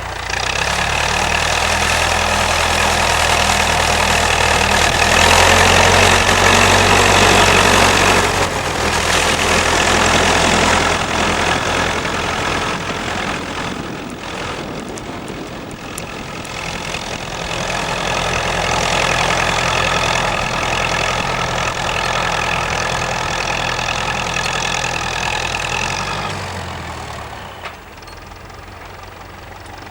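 Massey-Ferguson 65 tractor engine running steadily while pulling a plough. It swells louder twice, then its revs fall near the end.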